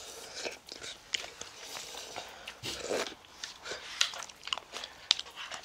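People eating ramen noodles: slurping and chewing, with many small clicks of chopsticks and spoons against bowls. A longer slurp comes about three seconds in.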